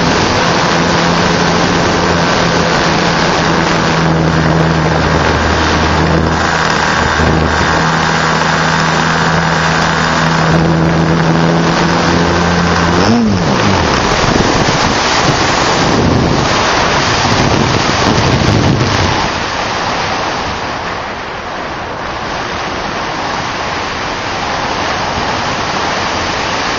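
RC airplane's motor and propeller droning at steady throttle, heard from on board; about halfway the pitch drops away sharply as the motor winds down, leaving rushing wind noise on the microphone.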